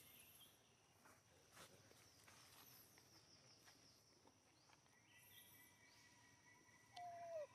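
Faint forest ambience: steady insect trilling and small high chirps from birds. Near the end comes one short call that glides downward in pitch, the loudest sound here.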